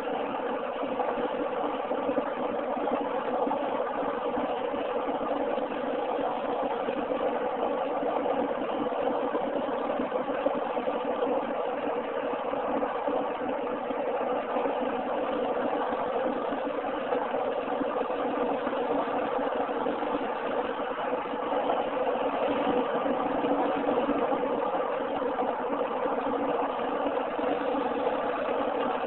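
Steady car engine and road noise heard from inside the cabin while driving along a highway, an even hum with no changes.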